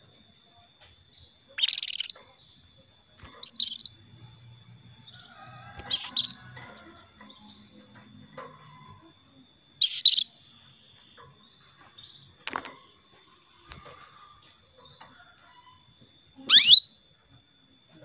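Female canary calling: about five short, loud chirps, each sweeping upward in pitch, a few seconds apart. These are a hen's calls to a male.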